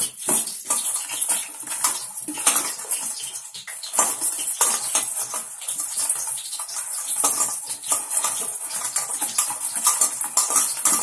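Steady clatter of small clicks and scrapes in a steel bowl as raw eggplant slices are rubbed by hand with salt and turmeric.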